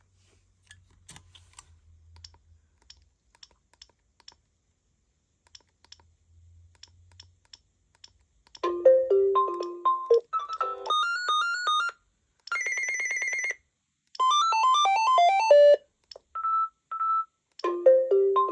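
Faint clicks of the Gigaset C630A cordless phone's keys, then, from about eight and a half seconds in, its ringtones played through the handset speaker one after another: about six short melodies and beep patterns, each lasting a second or two with brief gaps between them.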